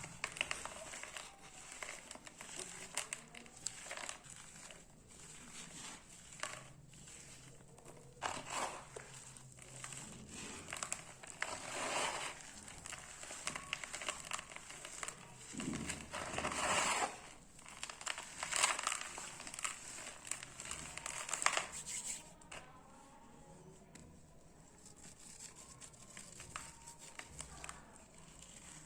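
Dry cement block crumbling and breaking apart, a gritty crunching and crackling in irregular bursts, with the loudest crunches in the middle and only faint crackles over the last several seconds.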